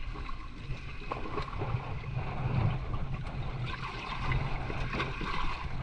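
Water sloshing and splashing as a fishing net is hauled in through shallow water, with wind buffeting the microphone as a low rumble.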